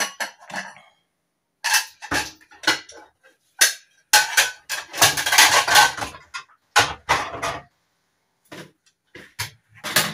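Kitchen clatter of steel pots, lids and utensils being handled: a series of separate knocks and clinks, with a denser stretch of rattling about four to six seconds in.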